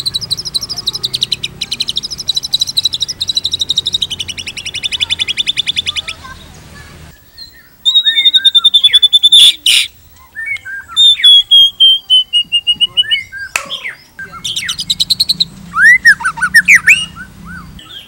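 White-rumped shama singing: a very fast rattle of rapidly repeated high notes, then clear drawn-out whistled notes with a few sharp clicks, and near the end more rapid notes and upward-sweeping calls.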